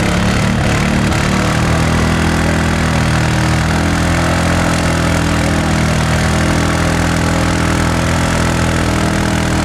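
ATV engine running loud and steady, holding an even pitch without revving up or down.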